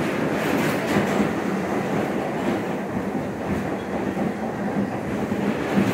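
New York City subway car running, heard from inside the car: a steady rumble of wheels on the track with a few faint clicks of rail clatter about a second in.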